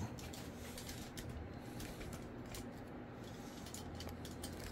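Faint handling noise: scattered small clicks and light rustling of things being moved about, over a low steady hum.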